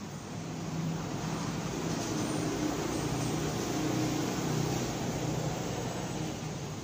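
Steady mechanical hum with a rushing noise behind it, swelling about a second in and easing a little near the end.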